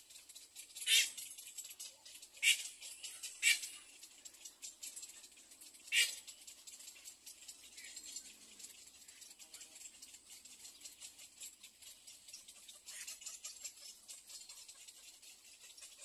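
Short dry rustles from the twigs and leaves of a little egret's nest: four sharp ones in the first six seconds and a weaker one near the end, over a faint steady crackle.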